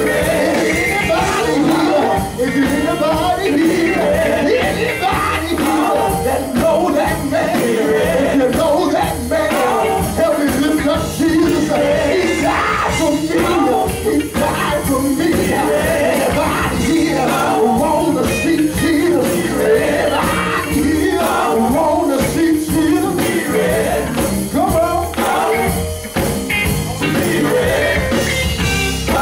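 Live gospel group singing through microphones and a PA, backed by a band with electric bass, keyboard and drums.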